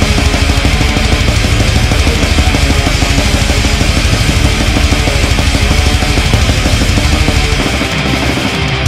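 Black-thrash metal recording played at full tilt: distorted electric guitars over rapid, relentless drumming with fast kick-drum hits.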